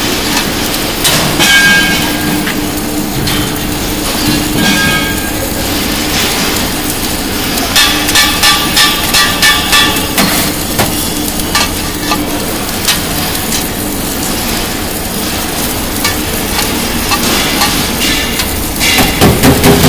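LPG cylinder submerged arc welding machine and shop machinery running: a steady hum under a dense crackle of metallic clicks and clanks. About eight seconds in there is a run of rhythmic knocks, about three a second, and a louder clatter comes near the end.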